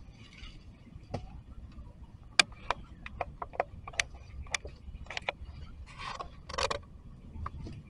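Scattered sharp clicks and crackles of dry leaves and twigs, with two short rustles about six seconds in, as macaques move and pick through the leaf litter right beside the microphone.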